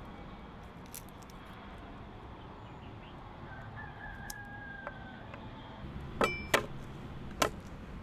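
A rooster crows faintly: one long, even call a few seconds in. Near the end come three sharp knocks on a wooden cutting board, from garlic being worked with a broad kitchen knife.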